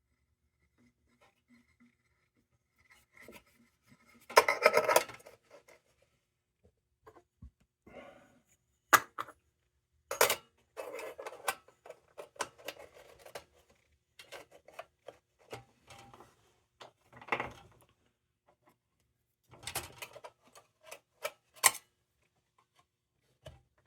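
Sheet-metal parts of a 1930 Dietz No. 2 Blizzard lantern being handled and fitted: scattered tinny clinks, sharp clicks and short rattles, with quiet pauses between them.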